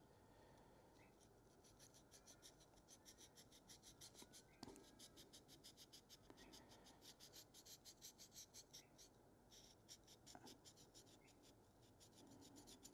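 Faint, quick back-and-forth scratching of a wet slipstone rubbed up and down inside the curved edge of a steel carving gouge, several strokes a second with a short pause near the end: honing away the fine burr on the inside of the edge.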